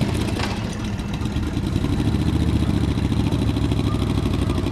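Classic car engine running at low speed, a steady low rumble.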